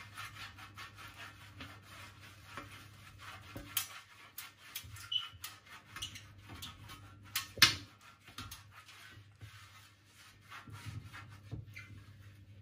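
Silicone pastry brush rubbing oil across a metal baking tray: repeated soft brushing strokes with a few sharper taps and scrapes, the loudest nearly eight seconds in. A low steady hum runs underneath.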